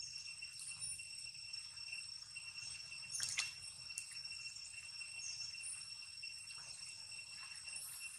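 Steady high-pitched drone of insects, with a few water splashes from young long-tailed macaques swimming in a pond; the loudest splash comes about three seconds in.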